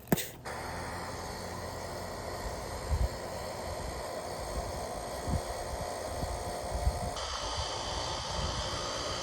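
Two miniature model heat pumps starting up: a click as they switch on, then a steady whirring, hissing run. About seven seconds in, a second, higher-pitched whir joins as the other unit comes on.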